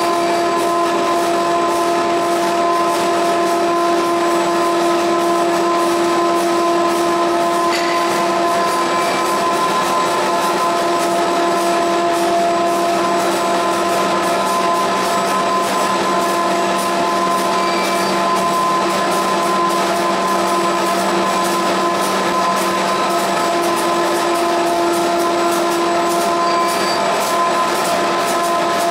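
YC1650-5C flexographic printing press for corrugated carton face paper running steadily: a constant machine hum with several steady tones over an even whirring noise.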